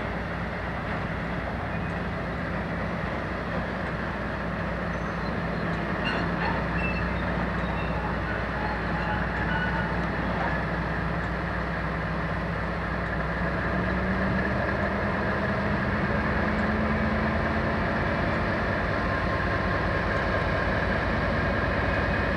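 Class 56 diesel-electric locomotive's engine running with a steady low hum, then revving up about two-thirds of the way through and holding the higher note.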